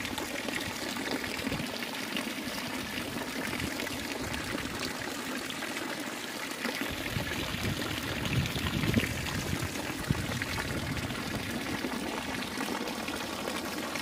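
Water from a stone fountain's jets and spouts splashing steadily into its basin, with a few brief low bumps past the middle.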